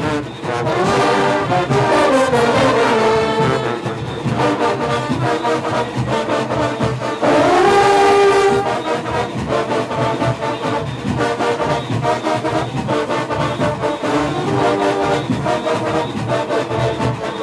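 Junkanoo brass section playing a loud horn line over a pulsing beat, the horns sliding down in pitch about a second in and sliding up around the middle.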